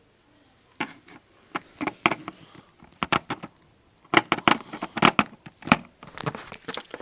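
Irregular clatter of hard clicks and knocks as the parts of a flat-screen TV's stand base are handled and tried together, busiest in the second half.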